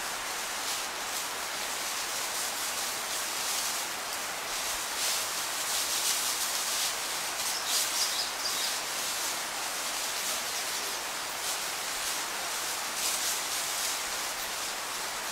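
White-nosed coatis rooting through dry leaf litter: a steady hissing rustle that swells and fades, with a bird chirping about eight seconds in.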